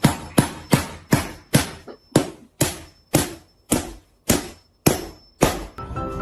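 A series of about a dozen sharp knocks, each with a short ringing tail, coming at first about three a second and slowing to about two a second.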